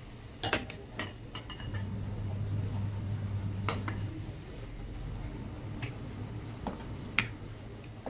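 A metal ladle clinking against a stainless steel pot of boiling broth: several sharp clinks spread over the few seconds, the loudest about half a second in and near the end, over a steady low hum.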